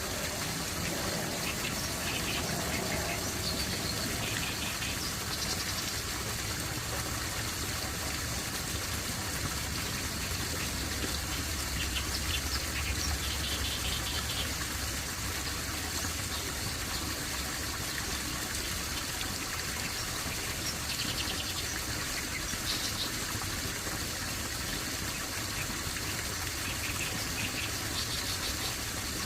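Steady rush of running water, with birds chirping briefly every few seconds over it.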